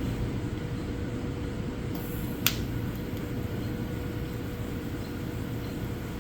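A steady low mechanical hum with a faint constant tone, broken once by a sharp click about two and a half seconds in.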